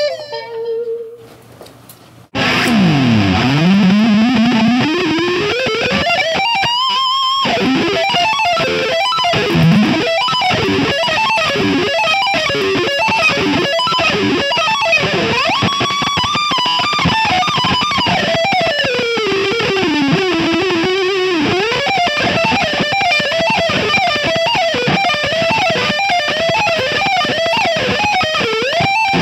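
Distorted electric guitar playing a fast shred lead: a deep pitch dive and rising slide about two seconds in, then rapid runs of notes sweeping up and down.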